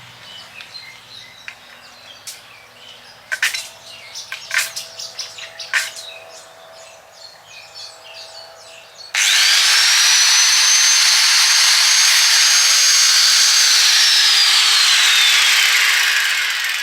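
An angle grinder with a cut-off disc starts suddenly about nine seconds in, whines up to speed and cuts a short marking notch into steel round bar. It is then switched off and winds down with a falling whine near the end.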